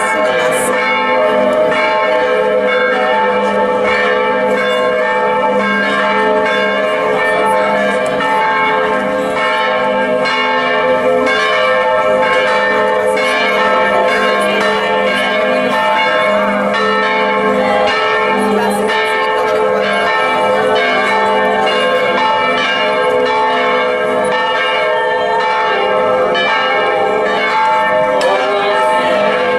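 Church bells ringing continuously from a bell tower, one strike overlapping the next so the tones never die away.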